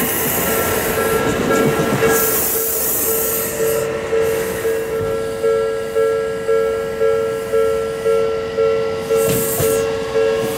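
A train running past over the rails in the first few seconds. Under it, a Japanese level crossing's warning bell rings, an even two-tone ding repeating about twice a second, which comes clearly to the fore once the train noise drops away.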